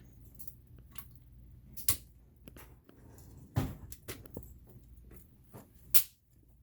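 Parts and tools of a laser engraver kit being handled: scattered light clicks and knocks, with a heavier knock about three and a half seconds in and a sharp click about six seconds in.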